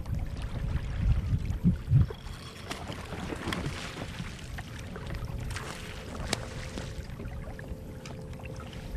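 Water sloshing against a fishing kayak's hull, with wind on the microphone and a couple of dull thumps about one and two seconds in, then a few sharp clicks.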